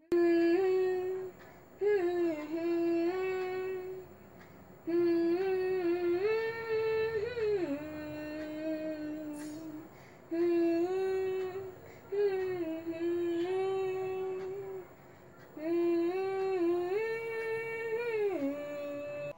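A boy humming a melody alone, without accompaniment, in about six phrases of a couple of seconds each, with short pauses between them.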